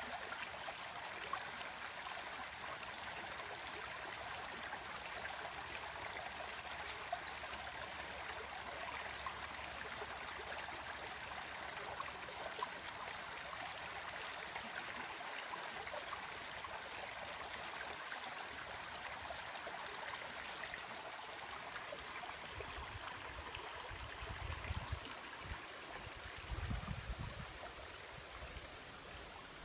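Shallow creek water running over rocks in a riffle: a steady rush and burble. Near the end, a few low rumbles come in under it.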